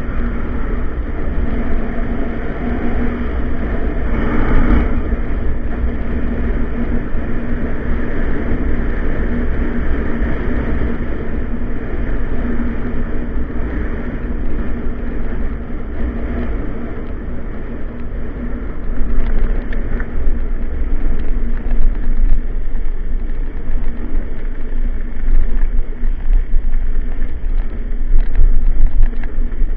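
Wind buffeting the microphone of a camera riding on a bicycle down a paved road, mixed with tyre rumble. A car passes about four seconds in. The buffeting gets louder and gustier past the halfway point as speed builds.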